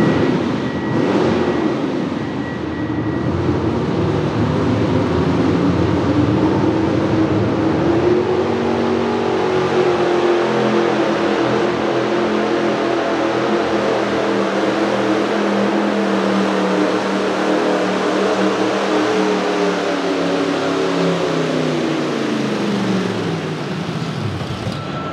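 Pro stock two-wheel-drive pulling truck, a 1987 Chevrolet C-10, running at full throttle as it drags a weight-transfer sled down the track. The engine note climbs a little about a third of the way in, holds steady, then drops away near the end as the run finishes.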